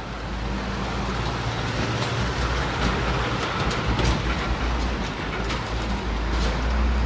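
Street traffic: a large vehicle's engine running low and steady close by, growing louder toward the end and then fading.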